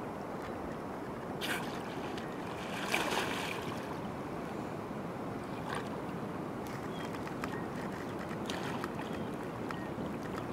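A sea lion splashing in shallow water at the water's edge, a few short splashes with the biggest about three seconds in, over steady lapping of small waves.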